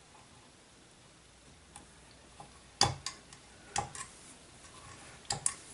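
A few small sharp clicks and taps, the loudest a little before three seconds in, as metal multimeter probe tips are moved over and pressed against the connectors of a small audio DAC.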